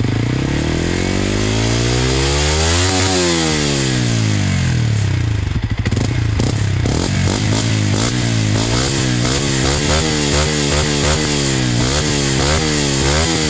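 Beta RR 125 4T Motard's single-cylinder four-stroke engine revving through a GPR Furore Evo 4 Poppy silencer while standing still. One long rev up and back down comes in the first few seconds, then quick repeated throttle blips, about two a second, from about seven seconds in.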